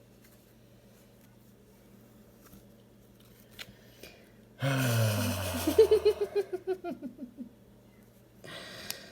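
A man's low groan, falling in pitch, breaking into a quick run of laughs, a mock-disappointed reaction to a pulled card. It comes after a stretch of near-quiet room tone. A short rustle follows near the end.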